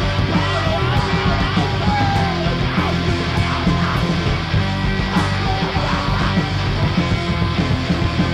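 Punk rock band playing live: distorted electric guitars, bass guitar and drums, loud and driving without a break.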